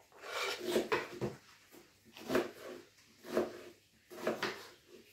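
Kitchen knife chopping raw potato on a wooden cutting board: separate knocks about once a second, with a little scraping early on as the diced potato is slid off the board into a bowl.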